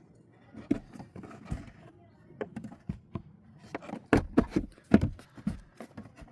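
Irregular knocks and clicks of a jet ski's plastic cover panels being handled and worked loose by hand, coming thickest about four to five and a half seconds in.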